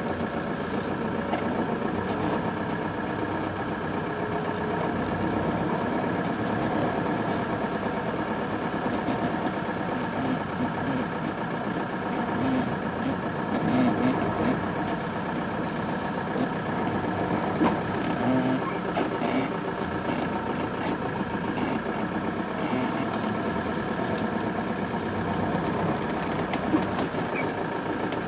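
A machine running steadily with an even hum, with a few faint clicks.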